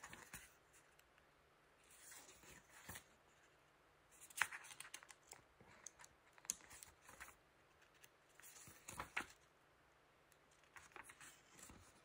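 Pages of a paper instruction booklet being flipped through: faint rustling and flicking of paper in about five short bursts, a second or two apart.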